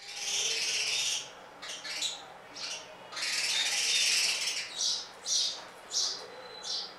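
Small birds chirping: two longer bouts of rapid twittering, with short separate chirps between and after them.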